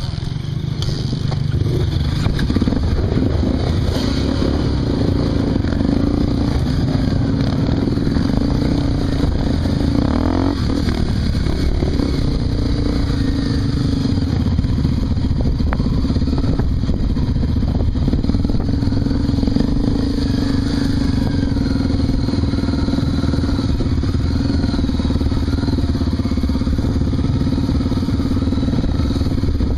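Honda Tornado 250's single-cylinder four-stroke engine running continuously as the motorcycle rides a dirt trail, with a brief change in engine pitch about ten seconds in.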